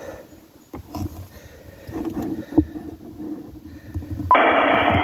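A few small knocks and clicks of handling in the vehicle's cab. A little over four seconds in, the speaker of an Icom IC-7100 transceiver comes on abruptly with loud, steady receiver hiss, tuned to the 40-metre amateur band.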